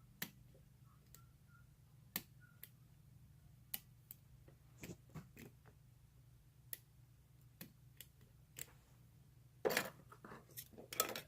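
Small metal clicks and taps of lock picks and a vintage Yale padlock being handled, scattered through, with a denser run of scraping clicks near the end, over a low steady hum.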